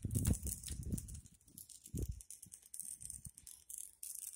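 Electric arc welding crackling with an uneven spitting hiss, heard from some way off. Low rumbling bursts on the microphone in the first second and again about two seconds in.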